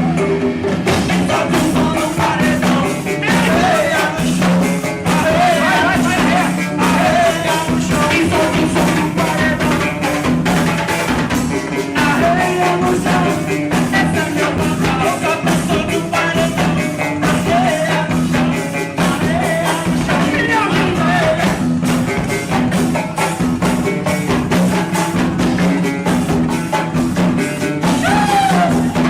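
A song playing loudly: a singer over a steady, driving drum beat, with no pause.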